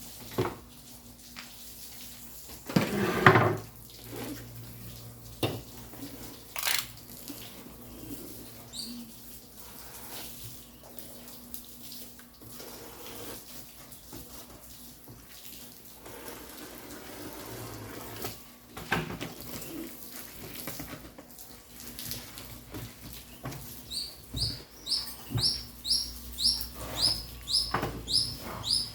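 Scattered clicks, knocks and rustles of packaging being handled. Near the end a small bird chirps in a quick regular series of short rising chirps, about two a second.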